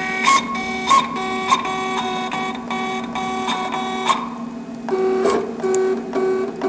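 Vinyl cutter's stepper motors whining in short, evenly repeated pulses as the carriage and rollers are jogged with the arrow keys to set the start position. The pulses stop for a moment about four seconds in, then start again.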